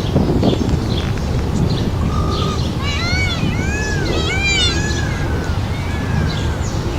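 Birds calling: a quick run of arched notes that rise and fall, several overlapping, a few seconds in, over a steady low rumble.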